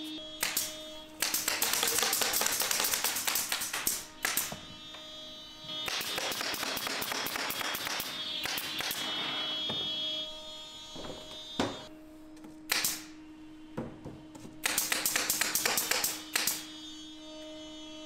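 Pneumatic nail gun firing in three long runs of rapid shots, with a few single shots between, as nails are driven along the edges of a plywood cabinet. A steady electrical hum runs underneath.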